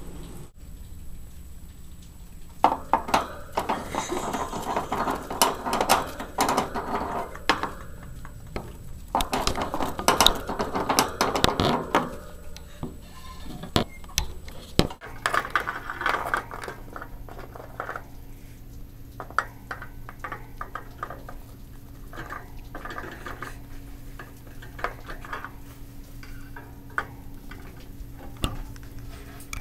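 A hamster moving about a plastic-and-wire CritterTrail cage, rattling and clinking the metal wire bars. A dense stretch of clatter fills the first half, then the clicks come scattered and sparser.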